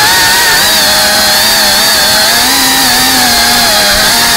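FPV drone's electric motors and propellers whining in flight, the pitch wavering up and down as the throttle changes.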